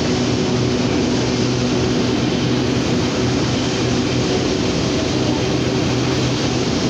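Alco diesel locomotive No. 75's engine running steadily close by, heard from an open passenger car. A steady rush of running noise lies under it as the train rolls along.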